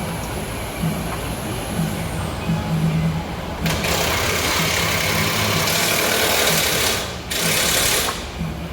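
A power tool running in two bursts, about three seconds and then under a second, spinning fasteners loose during AC compressor removal.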